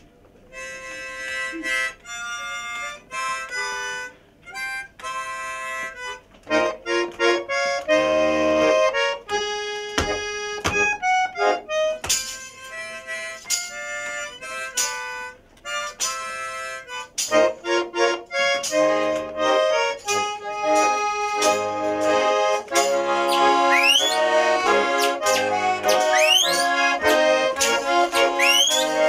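Russian garmon (button accordion) playing a lively folk tune, with sharp clacks of wooden spoons keeping rhythm. In the second half, several quick rising whistled slides are added over the tune.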